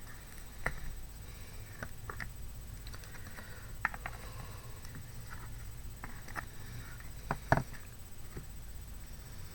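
Scattered light taps and clicks of a cardboard box and craft materials being handled on a table, the loudest a pair of knocks about seven and a half seconds in, over a low steady hum.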